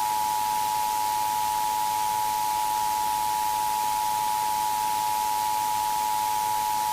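Emergency Alert System attention signal: two steady high tones (853 and 960 Hz) sounding together without a break, over a faint hiss.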